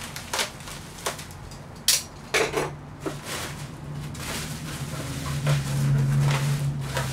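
Plastic bag and bubble wrap crinkling and rustling as they are pulled off a fiberglass body shell: a few separate sharp crackles over the first three seconds, then denser continuous rustling, over a steady low hum.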